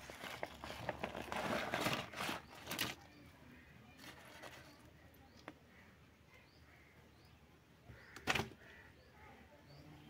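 Clear plastic bag crinkling and rustling as it is handled over a water-filled basin, through the first three seconds. One short, loud noise follows about eight seconds in.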